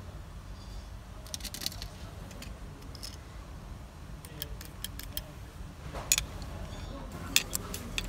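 Small plastic and metal clicks and taps from a seat belt retractor's covers and gear mechanism being handled and pulled apart. The clicks come in scattered clusters, with the loudest knocks about six seconds and seven and a half seconds in.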